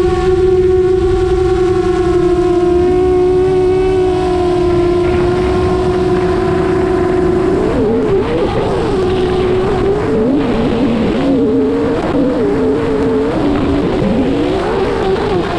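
Rekon 6 LR long-range FPV quadcopter's motors and propellers whining in flight, holding a steady cruising pitch, then wavering up and down with throttle changes from about eight seconds in, over a low rush of wind.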